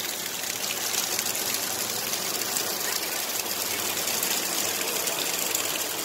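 Narrow waterfall: water falling and splashing steadily onto rocks, an even rushing noise.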